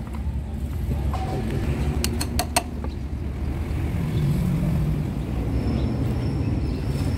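Steel hand tools clinking against a truck gearbox: four quick, sharp metal clinks about two seconds in, a couple of them ringing briefly. Under them runs a steady low rumble of vehicles.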